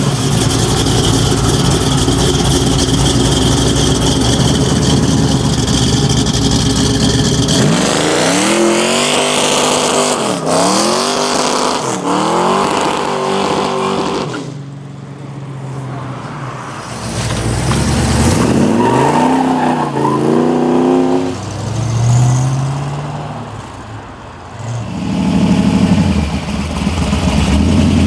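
Muscle-car V8 engines running and revving. It is loud and steady for the first seven seconds or so, then comes a run of revs that rise and fall in pitch several times. It eases off for a couple of seconds past the middle, more rising revs follow, and it grows loud and steady again near the end.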